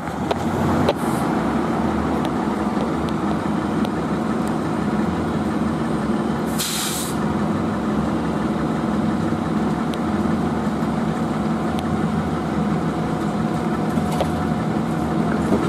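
Fire trucks' diesel engines idling steadily. Near the middle comes a short hiss of released air, about half a second long, typical of a truck's air brakes.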